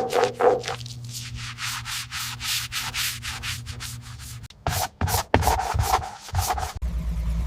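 Rhythmic rubbing strokes, like sanding, about four or five a second over a low hum. From about two-thirds of the way through, they give way to louder, uneven low thumps that cut off suddenly at the end.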